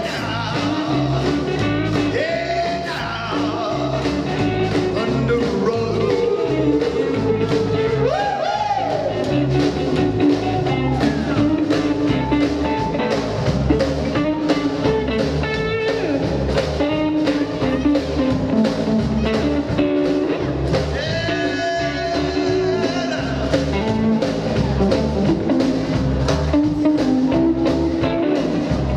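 Live rockabilly band playing: electric guitar, slapped upright double bass and drums with a steady driving beat, with no words sung.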